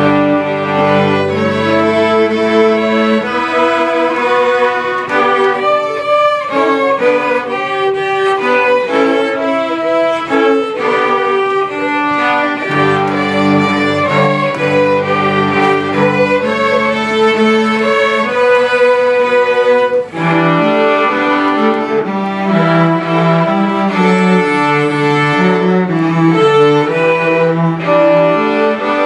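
String ensemble of violins and cellos playing a piece together, several sustained bowed lines at once, with a brief pause about twenty seconds in.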